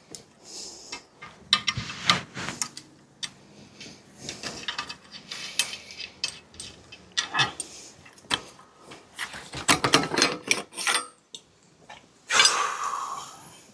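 Metal clinks and knocks of spanners and bicycle parts being handled as a loosened fitting comes off the bike, with a longer scraping rub near the end.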